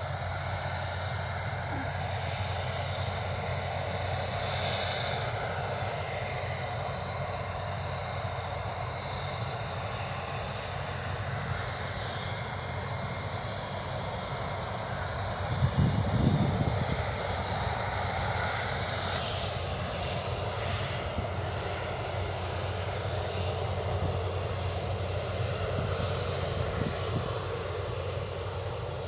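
Aircraft engines at an airport, a steady continuous noise throughout, with a brief louder low gust of sound about halfway through.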